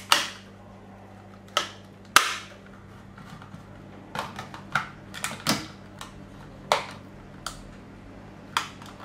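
Sharp plastic clicks and clacks as the case of a small Crosley CS-908M portable radio is handled and snapped back together: about a dozen irregular knocks, the loudest about two seconds in. A faint steady hum lies underneath.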